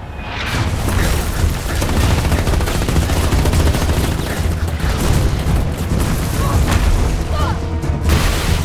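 Battle sound effects over a film music score: rapid gunfire and heavy booming impacts, dense and loud, building up about half a second in.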